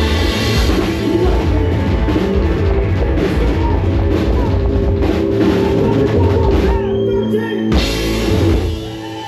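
Live rock band playing loud, with electric guitar and drum kit, at the close of a song: the sound breaks off briefly about seven seconds in, comes back for one more short loud hit, and then falls away.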